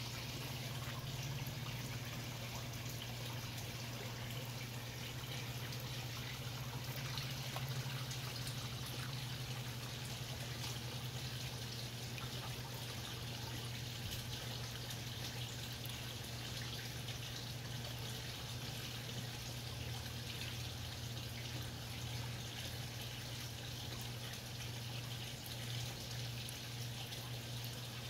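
Koi jostling and mouthing at a pond's surface: a steady patter of small slurps, drips and splashes, over a steady low hum.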